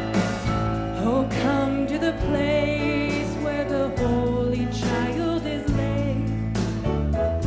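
Christian worship song performed live: sung voices with vibrato over sustained instrumental accompaniment, with steady drum hits.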